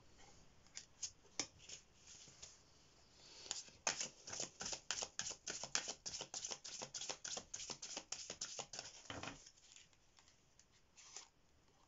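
A deck of oracle cards being shuffled by hand: a quick run of short card-on-card flicks and slides, densest for about five seconds in the middle, with a few scattered ones before and after.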